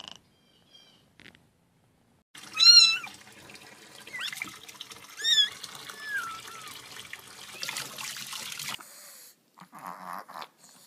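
A cat meowing four times in short calls that rise and fall in pitch, the first the loudest, over a steady hiss that cuts off near the end.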